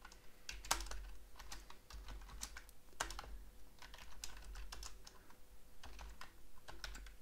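Typing on a computer keyboard: a run of irregular key clicks, over a faint steady low hum.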